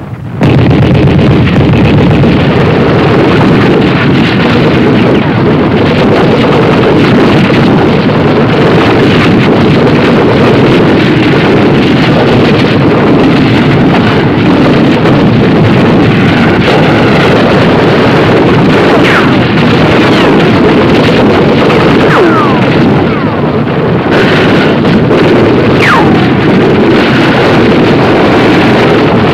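Steady, loud roar of battle noise, the supporting fire on the town blurring into one continuous rush with no single shots standing out. It starts abruptly just after the start, and a few short falling whistles cut through it in the second half.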